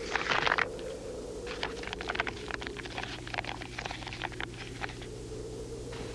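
A wooden writing tablet and reed pen being handled: a short scraping burst at the start, then a run of quick scratches and taps for a few seconds, over a steady low hum.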